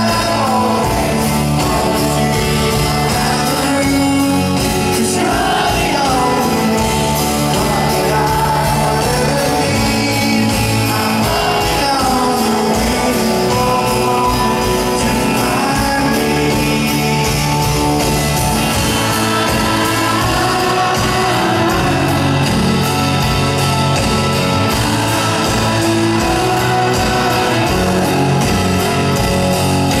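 Live rock band performing a song: a man sings lead over strummed acoustic guitar and drums, steady and loud throughout.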